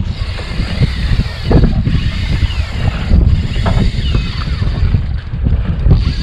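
Wind buffeting the microphone on an open fishing boat at sea, a heavy low rumble, with a steady higher hiss over it and a few faint whines that glide down in pitch.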